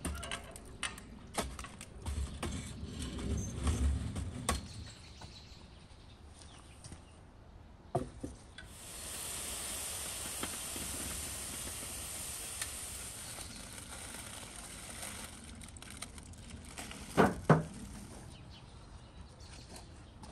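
Clicks and low thumps of things being handled, then a steady hiss lasting several seconds, and two sharp knocks near the end.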